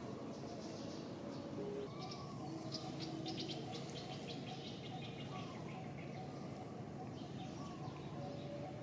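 Birds chirping: short, repeated tweets over a steady background hiss, busiest about two to four seconds in.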